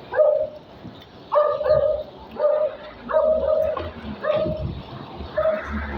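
A dog barking again and again in short, same-pitched barks, about eight in six seconds, with a low rumble of wind buffeting the microphone that swells twice.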